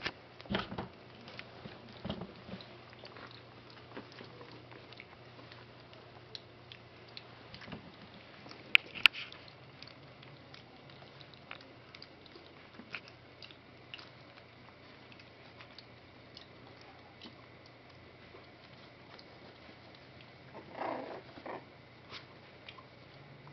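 Young puppies, about three and a half weeks old, padding and shuffling about on blankets and at a bowl of mush, with scattered small clicks and ticks. There are two sharp clicks about nine seconds in and a short louder scuffle about twenty-one seconds in.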